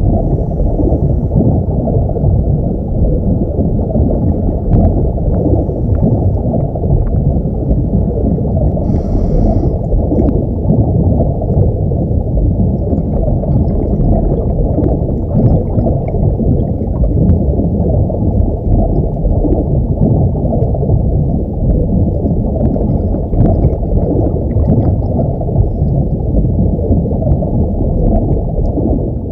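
Underwater ambience sound effect: a steady, muffled low rumble of moving water with faint scattered clicks, and a brief brighter hiss about nine seconds in.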